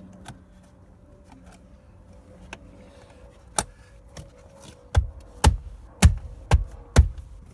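Door sill trim plate being snapped back onto its clips. A few light clicks, then five hard thumps about half a second apart as it is pounded down into place by hand.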